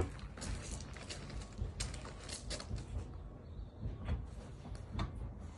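A few light, scattered knocks and clunks of a man handling a van's wooden bed-and-drawer unit and shifting about on the load floor.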